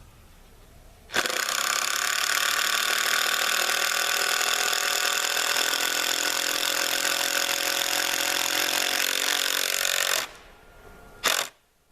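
Impact wrench driving a lag bolt into a landscaping timber: one steady hammering run of about nine seconds that slows slightly just before it stops, then a short blip of the trigger near the end.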